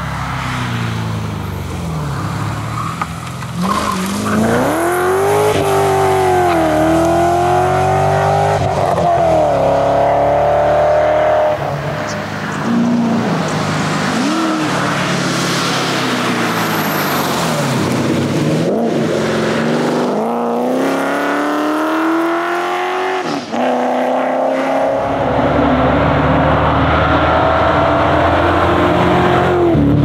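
Ford Falcon Pursuit 250 ute's V8 driven hard, its engine pitch climbing under acceleration and dropping at each gear change or lift, several times over.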